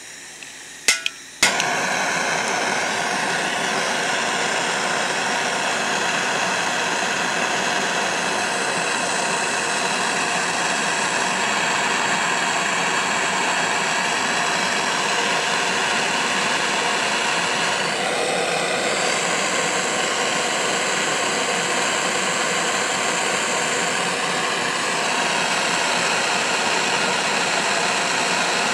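Gas torch lit with two sharp clicks about a second in, then its flame hissing steadily as it is played on a silver nugget to melt it. The hiss dips a little in level for several seconds in the second half.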